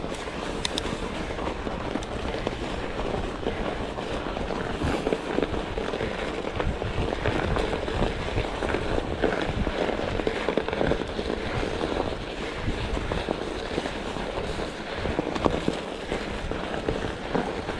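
Mountain bike riding rough singletrack: a steady dense crackle of the knobby tyres crunching over the trail surface, mixed with small knocks and rattles from the bike.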